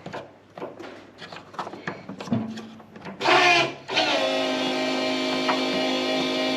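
A few knocks and clicks of handling, then a short loud rush. About four seconds in, an electric fuel pump starts running with a loud, steady hum, which is part of checking why the pump is not working.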